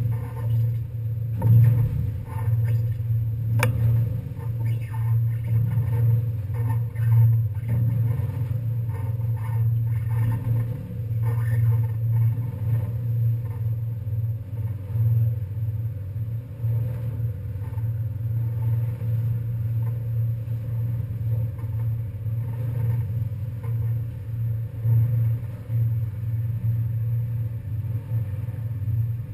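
Ferry's diesel engines droning steadily, heard from on board as a deep, even hum, with a sharp click about four seconds in.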